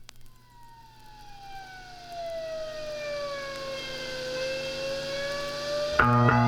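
Rock song intro: a single sustained tone with overtones, siren-like, glides slowly down and then slowly back up while swelling in loudness. About six seconds in, the band enters with guitar and bass.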